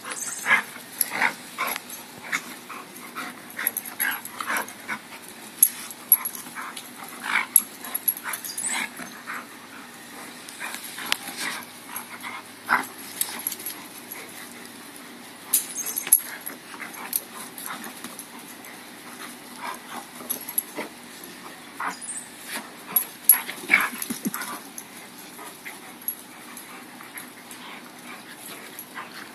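A Rottweiler and a Basset Hound puppy play-fighting, with many short, sharp dog noises at irregular intervals.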